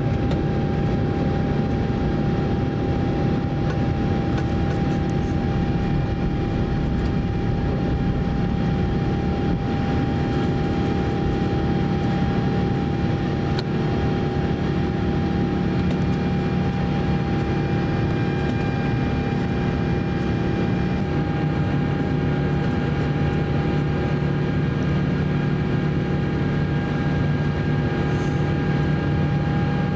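Steady cabin noise inside an Airbus A350-900 climbing after takeoff: its Rolls-Royce Trent XWB engines and the rush of air over the fuselage, with a steady hum and a fainter whine on top. The pitch of the engine tones shifts slightly about two-thirds of the way through.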